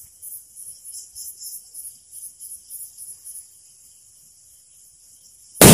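Crickets chirping in a rapid pulsing rhythm while a lit sutli bomb's fuse burns down. Right at the end the twine-wrapped firecracker goes off with a loud, sudden bang.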